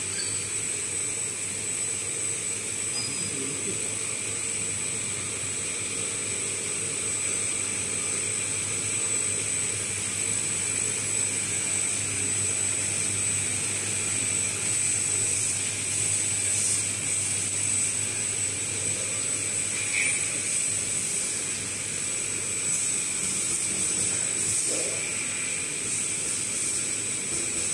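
Automatic bottle capping and labeling line running: a steady mechanical hum with a constant high-pitched whine, and a few light clicks and taps in the second half.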